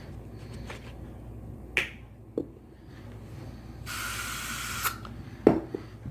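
A burst of Air Wick air freshener spray, a hiss of about one second in the middle. Short sharp clicks or knocks come before it and just after it, the loudest about a second after the spray.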